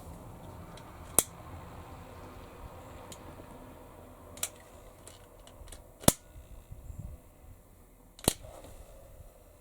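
Four sharp single clicks a second or more apart, with a few fainter ticks between them, over low room noise.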